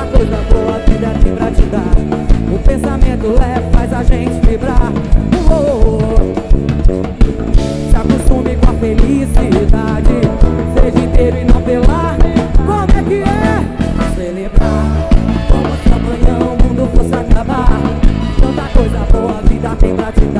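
Live axé band playing loud, upbeat music: a drum kit keeping a steady, fast beat under guitar and other melodic instruments. The beat drops out briefly about two-thirds of the way through, then comes back.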